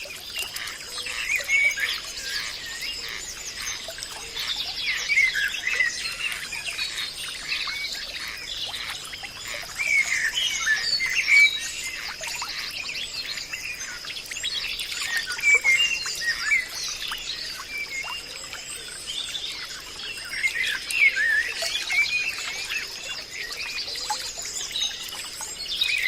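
A chorus of many songbirds chirping and singing at once, overlapping calls throughout, over a steady high-pitched whine.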